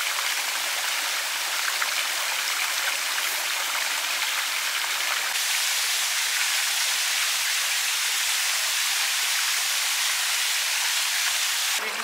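Stream water flowing, a steady, even rush.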